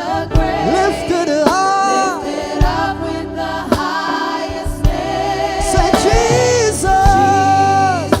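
Gospel worship song: voices singing long held notes with vibrato over a band, with a low drum beat about once a second.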